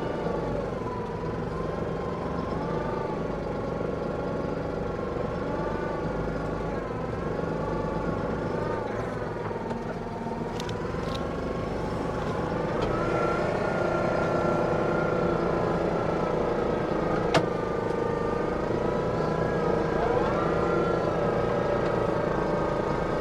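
Tractor engine running steadily with a whining tone whose pitch drifts gently up and down, getting a little louder about halfway through; a single sharp click sounds about seventeen seconds in.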